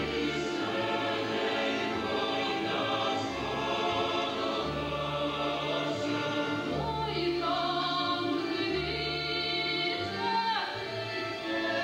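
Folk choir singing in many voices, with long held low notes underneath.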